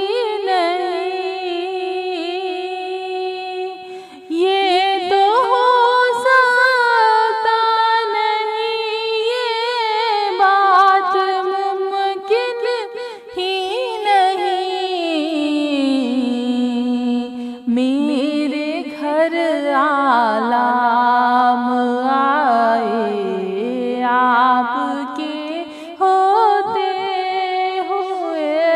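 A woman singing a naat unaccompanied, in long, wavering held notes; the melody drops lower about halfway through.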